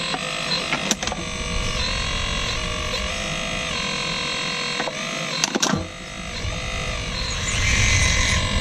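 RC excavator's electric motors whining as the claw and arm are worked, the whine stepping up and down in pitch as the controls change, with a few sharp clicks. The sound gets louder and hissier near the end.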